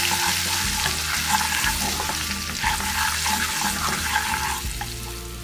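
Dried herbs, red chili flakes and ground spices sizzling in hot oil in a nonstick pan while a spatula stirs and scrapes through them. The sizzle eases off toward the end.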